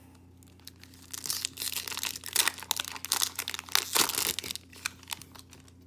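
Plastic Magic: The Gathering booster pack wrapper being crinkled and crumpled in the hand. It is a dense, irregular crackling that starts about a second in and dies away after about three and a half seconds.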